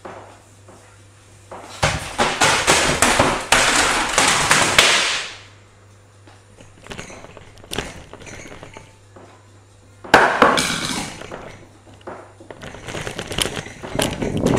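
A framed picture falls from the wall and crashes to the floor about two seconds in: a loud crash and clatter lasting about three seconds. Two more clattering bursts follow, one starting suddenly at about ten seconds and another near the end.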